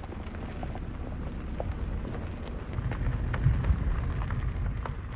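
Wind buffeting the microphone: a low, uneven rumble that gets louder about halfway through, with scattered faint clicks.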